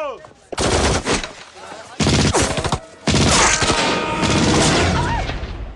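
Volleys of rapid gunfire in three bursts: about half a second in, at two seconds, and a longer one from about three seconds to near the end.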